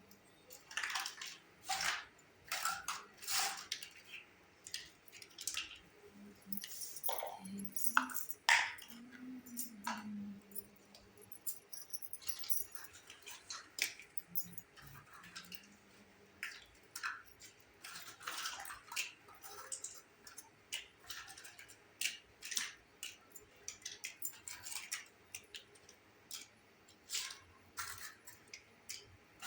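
Small plastic pieces of a Hello Kitty mini toy kitchen set being handled, giving irregular light clicks, taps and knocks.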